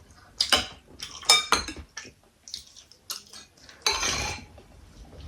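Spoons and forks clinking and scraping against plates and bowls during a meal, in scattered irregular clicks, with a short louder rasp about four seconds in.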